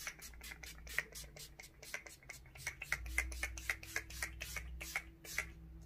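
Pump-spray bottle of Urban Decay All Nighter setting spray misting the face in quick repeated spritzes, about five a second, stopping shortly before the end.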